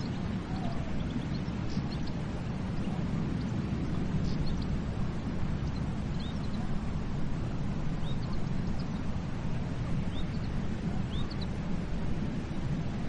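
Steady wash of ocean surf breaking on a beach, mostly a low rumble, with faint short bird chirps scattered through it.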